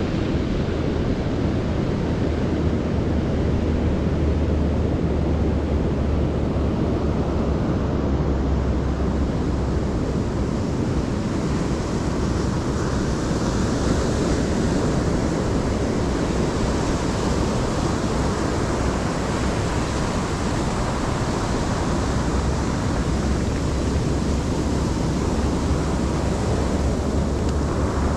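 Steady wash of surf on a beach, with wind buffeting the microphone and adding a heavy low rumble.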